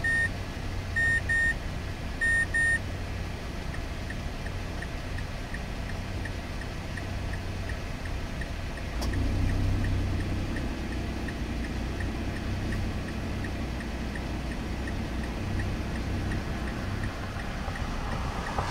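High electronic beeps: one, then two quick pairs in the first three seconds, then a faint beep repeating about twice a second. About nine seconds in there is a sharp click, and a low rumble grows louder.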